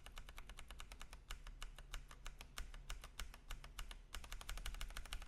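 Fast typing on a mechanical keyboard fitted with Akko Jelly Blue switches: a quick, quiet stream of key clacks, many strokes a second.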